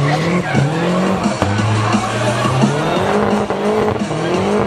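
Classic BMW 02-series doing a burnout in circles: the engine is held high in the revs, rising and falling every second or so, while the rear tyres spin and squeal on the tarmac.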